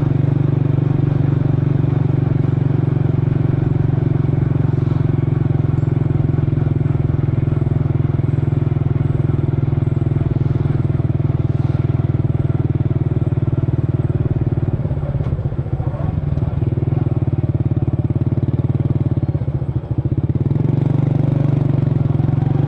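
Motor scooter engine running steadily at idle, its note turning rougher and uneven for a few seconds past the middle before settling again.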